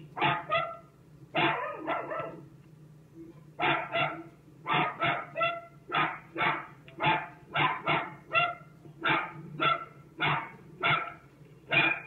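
Pet dog barking over and over, about one to two barks a second, with a short pause about three seconds in.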